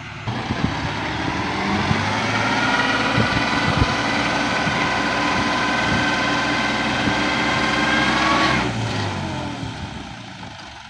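Excavator running under load. Its whine rises over the first couple of seconds, holds steady, then drops away about eight and a half seconds in, with a few knocks early on.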